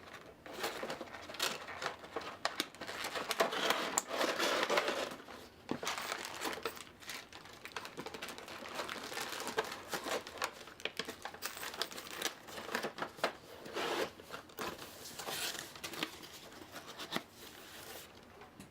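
Plastic packaging crinkling and rustling as plastic miniatures and their packing are handled and put away, with scattered light clicks and taps.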